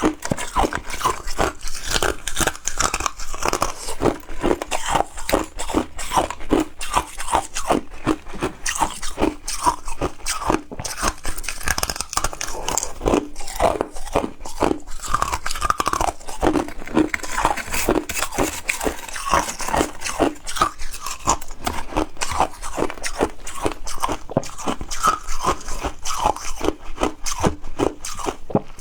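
Ice being bitten and chewed: a continuous run of sharp crunches, several a second.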